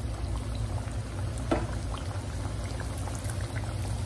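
Stuffed puris deep-frying in hot oil in a kadai, the oil bubbling and sizzling steadily around them, with a single sharp tap about a second and a half in.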